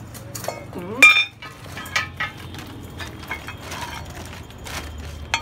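Metal bicycle parts, the fork among them, clinking and knocking as they are picked up and handled on a concrete floor, with one loud ringing clink about a second in and several lighter knocks after it.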